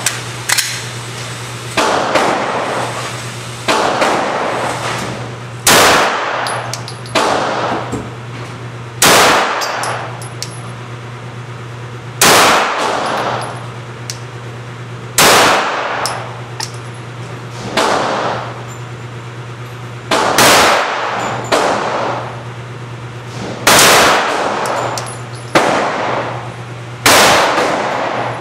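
9mm Glock 17 Gen 4 pistol shots fired one at a time at a slow pace, roughly one every one and a half to two seconds, each with a short echo; some shots are noticeably louder than others. A steady low hum runs underneath.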